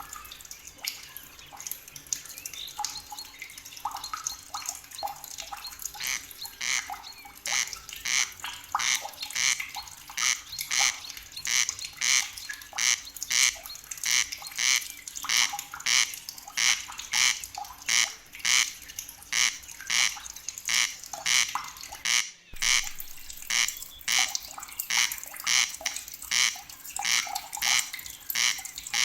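Nature soundscape: an animal call, sharp and high, repeating evenly about twice a second and growing louder after the first few seconds, over a steady watery hiss. The sound cuts out for a split second a little past the middle.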